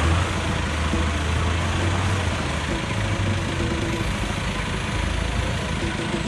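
Off-road vehicle's engine running steadily at idle, a low even hum.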